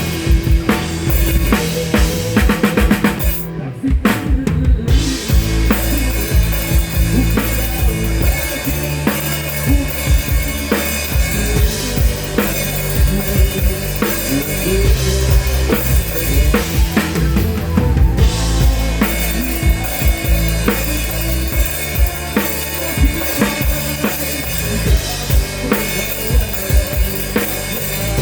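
A rock band playing live, heard close to the drum kit: steady kick, snare and cymbal hits over sustained bass notes, with a short break in the cymbals about four seconds in.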